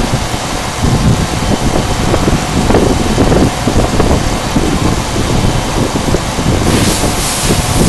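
CNC milling machine running and cutting acrylic plate, a loud steady rumbling noise; a brighter hiss comes in near the end.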